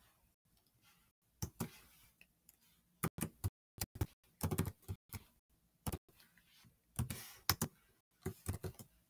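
Typing on a computer keyboard: separate keystroke clicks in short, irregular runs with brief pauses between them.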